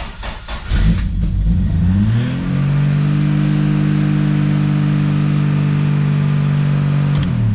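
Turbocharged 2JZ-GTE straight-six engine starting about a second in, on its first start after the fuel injectors were resealed with new O-rings and insulators. It revs up, holds steady high revs for about four seconds, then drops back near the end.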